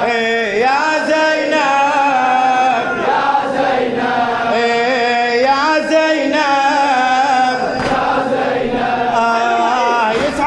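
Husseini latmiya mourning chant sung by men's voices, drawn out in long, wavering melodic lines with no spoken words.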